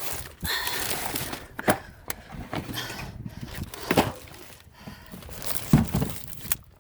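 Salvaged items being handled and packed into a tote: rustling with scattered knocks and thumps, the loudest about four and six seconds in.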